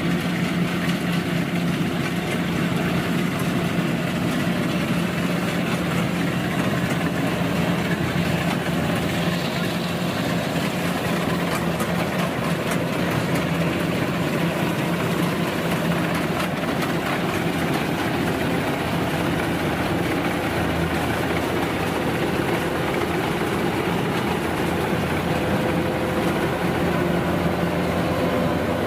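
Kubota DC-93 rice combine harvester running steadily, its diesel engine and machinery making a continuous drone with an even low hum.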